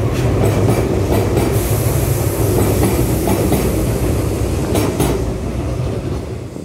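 Six-car Tobu 200 series limited express electric train departing, its cars rolling past with a steady rumble and clacks of the wheels over rail joints. The sound falls away sharply near the end as the last car passes.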